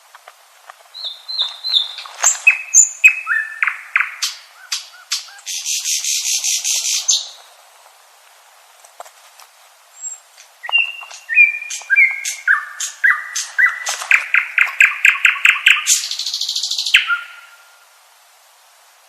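Common nightingale singing two song phrases a few seconds apart. Each is a run of varied whistled notes, sliding and repeated, that ends in a fast buzzing rattle. The second phrase closes on a brief low whistle.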